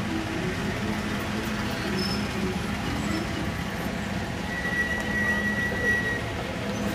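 Classic convertible cars, Alfa Romeo Spiders among them, rolling slowly past one after another, engines running at low revs. About four and a half seconds in, a thin high squeal holds for nearly two seconds.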